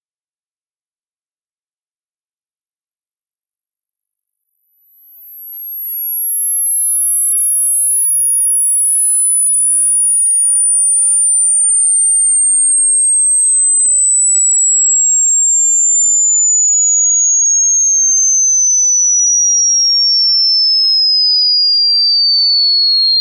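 Electronic pure-tone sweep of a high-frequency hearing test: a single thin whistle at even loudness, falling slowly in small steps from an extremely high pitch, near the top of hearing, down to a high whistle.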